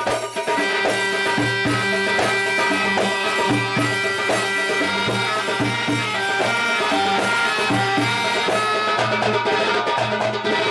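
Middle Eastern belly-dance music with a steady drum beat; held melody notes come in about half a second in and run over the rhythm.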